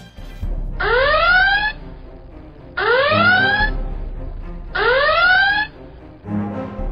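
An alarm-like rising whoop sounds three times, about two seconds apart, over a low hum. It is an electronic sound effect in the edited soundtrack.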